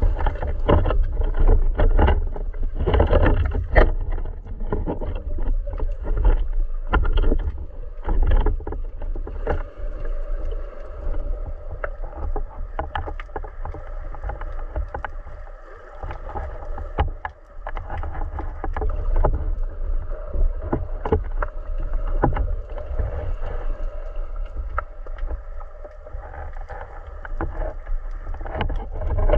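Muffled underwater noise heard through a speargun-mounted camera's waterproof housing: a continuous low rumble of moving water with frequent small clicks and knocks.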